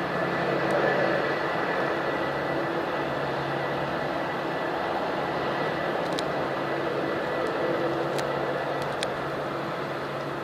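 Jet airliner engines running steadily at low power: a steady rush with a held whine over it. A few faint clicks come near the end.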